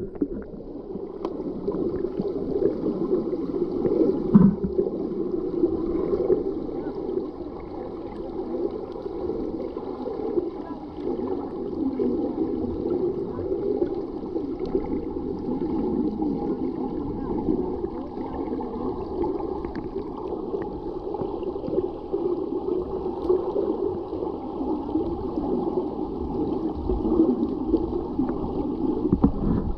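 Water heard through an underwater camera as a group of players tread water with the eggbeater kick: a steady, muffled churning and gurgling. A brief louder knock about four seconds in.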